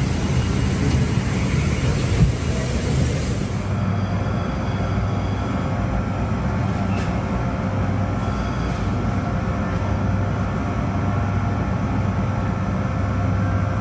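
Steady rumble and hum of a vehicle in motion, heard from inside, with several steady tones. A high hiss fades out about four seconds in.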